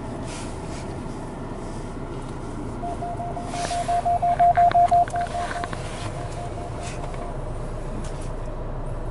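Inside the cab of a Jeep Renegade Trailhawk with a 2-litre diesel, the engine and tyres hum steadily under way. About three seconds in, an electronic warning beep sounds rapidly, several short beeps a second for about two seconds, then fainter and more spaced until it stops.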